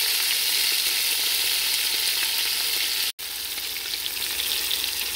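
Oil sizzling steadily in a pot as chopped tomato, green chillies, browned onion and whole spices fry, stirred with a wooden spatula. The sizzle drops out for an instant about three seconds in and comes back slightly quieter.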